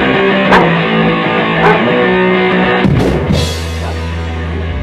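Oi punk band playing: guitar chords over drums, with a cymbal-like crash about three seconds in, after which a low note holds.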